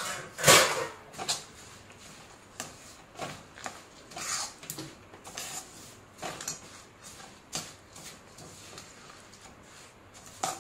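Metal spoon scraping and knocking against a metal kadhai while stirring sesame seeds and crushed peanuts into hot jaggery syrup, in irregular strokes with a louder knock about half a second in.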